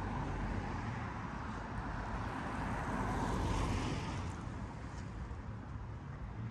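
Road traffic on a city street: a steady rush of tyres and engines that swells as a vehicle passes about three and a half seconds in, then eases off.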